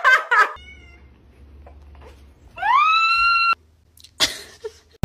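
A domestic cat meowing once, a long call that rises and then holds steady before cutting off suddenly. Laughter in the first half-second, and a short knock near the end.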